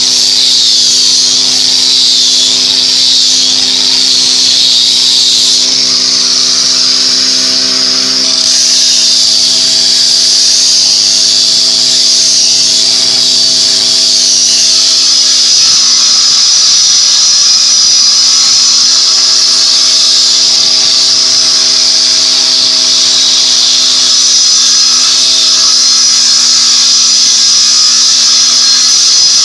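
Woodworking power tool running steadily, with a loud hiss and a humming pitch that shifts about halfway through.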